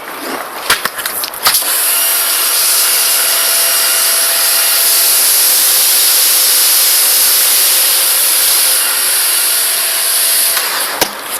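Karcher 110-bar pressure washer spraying snow foam through a foam lance: a loud, steady, hissing spray that starts after a few clicks about a second and a half in and cuts off shortly before the end, with a faint steady whine underneath. A sharp click follows near the end.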